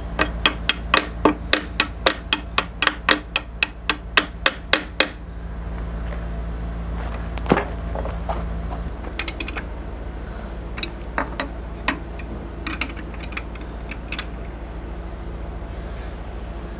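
Hammer blows, about twenty in quick succession at some four a second, while the sailboat's rudder is being worked loose to drop it out of the hull. After a pause come scattered lighter metal clinks and taps of a wrench at a rudder fitting.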